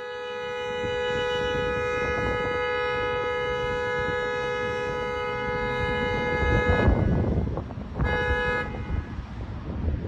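Pickup truck's horn held in one long steady blast of about seven seconds, cut off, then one short honk about a second later, set off by a dog pressing the steering wheel.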